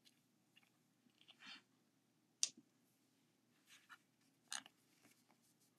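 Mostly near silence with a few faint handling sounds of nail stamping: short scratchy strokes and light clicks as polish is applied to a metal stamping plate and the bottle handled, the sharpest click about two and a half seconds in.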